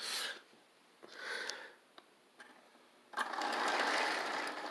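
Electric O gauge model train starts running along the track about three seconds in, its motor and wheels giving a steady mechanical whir. Before that, two brief handling noises.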